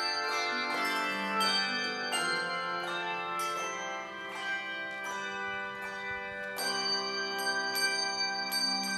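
Slow instrumental music of ringing, bell-like notes, held and overlapping, with a new chord struck near the end.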